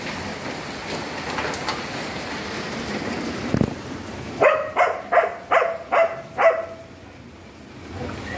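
Steady rain falling. About halfway through, a dog gives six short, high yelps in quick succession, and the rain sounds fainter near the end.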